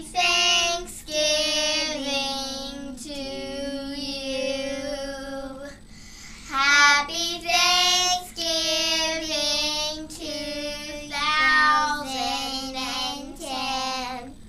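Young girls singing a song together, their voices alone with no accompaniment, breaking off briefly about six seconds in before carrying on.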